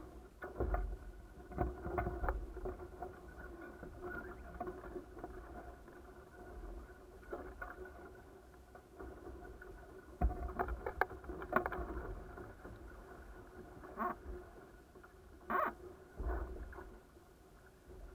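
A-Class catamaran sailing in light wind: water lapping at the hulls under a low rumble and a faint steady hum, with irregular knocks and creaks from the boat.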